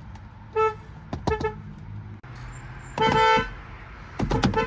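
Car horn honking on one steady note: a short toot, a few quick taps, a longer honk about three seconds in, then another run of quick taps near the end.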